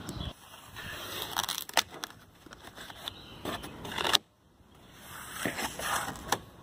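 Small knife blade slitting and tearing a corrugated cardboard box: irregular crackling and scraping of cardboard, with a short silent gap a little past the middle.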